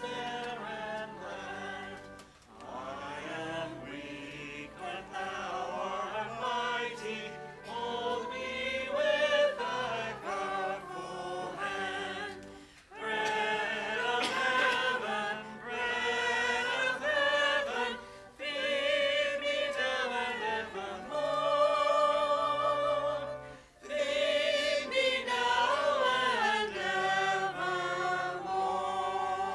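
Choir singing a slow piece in several voices, in long phrases broken by short pauses.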